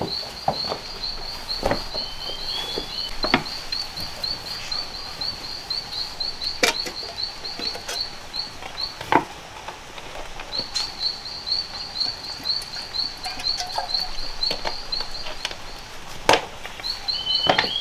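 An animal calling in a rapid, even train of high chirps, about four or five a second, in two long runs with a pause in the middle. A few sharp knocks and a short slurred whistle twice are heard over it.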